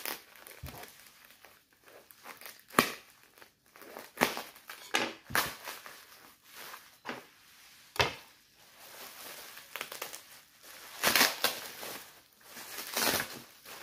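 Bubble wrap crinkling and crackling in irregular bursts as it is handled and pulled open by hand, busiest near the end. Two sharp knocks, about three and eight seconds in, the first the loudest sound.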